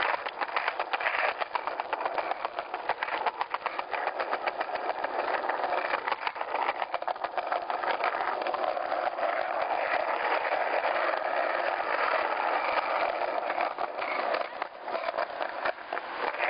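Rustling and buffeting noise on a phone microphone carried by someone moving fast on foot, with the phone rubbing against a hand or clothing. It is a continuous, rapidly fluttering rush with no clear voices.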